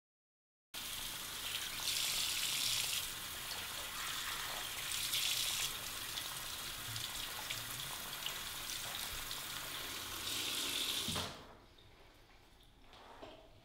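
Water running from a bathroom tap into a sink basin while hands are washed under the stream, the splash swelling and easing as the hands move. It starts abruptly about a second in and stops suddenly when the tap is shut off near the end.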